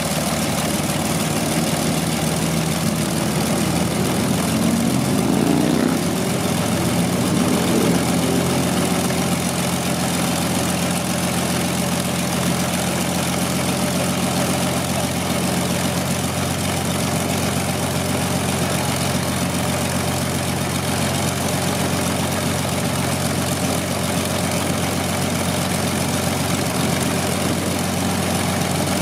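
Two Rolls-Royce Merlin V12 aero engines running with their propellers turning, a steady heavy idle. The engine note rises briefly twice between about four and nine seconds in.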